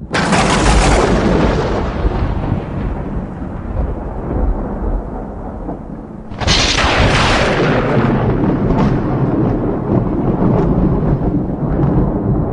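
Thunder: a sudden loud clap at the start that rolls away into a long low rumble, then a second sharp clap about six seconds in, followed by more rolling rumble.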